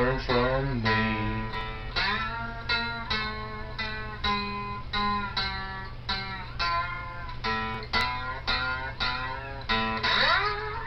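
Outro music: guitar playing single plucked notes, two or three a second, some of them sliding in pitch near the start and again near the end.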